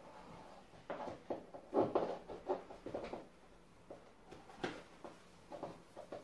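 Household handling noises in a small room: a run of light clicks, knocks and rustling, loudest about two seconds in, with one sharp click a little after four and a half seconds, as someone works a door handle and moves about beside a door and chair.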